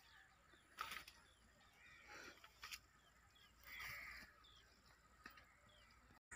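Near silence: faint outdoor ambience with scattered small bird calls and a few faint clicks.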